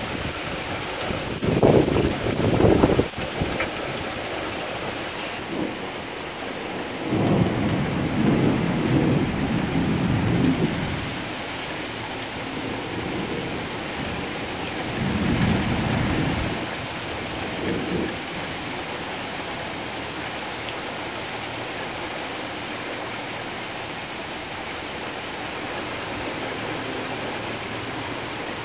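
Torrential rain pouring down steadily, with low rumbles of thunder rolling in several times, the loudest about two seconds in.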